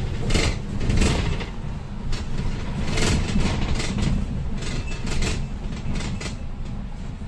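Inside a moving bus: a steady low rumble of engine and road, with frequent short rattles and knocks from the body and fittings.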